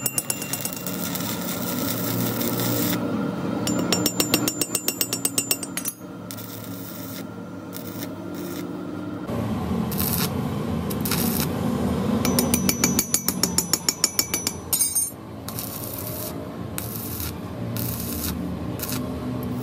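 Stick (arc) welding on a steel gear tooth: the electrode arc crackles and sputters steadily, building weld onto a broken tooth. Two louder spells of rapid crackling stand out, one a few seconds in and one about two-thirds of the way through.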